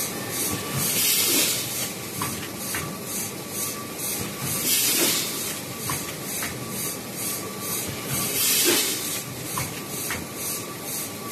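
Automatic quad-seal vertical form-fill-seal packaging machine running in its cycle: a steady mechanical run with a thin whine and scattered clicks, broken three times, about four seconds apart, by a sharp hiss of compressed air from its pneumatic cylinders.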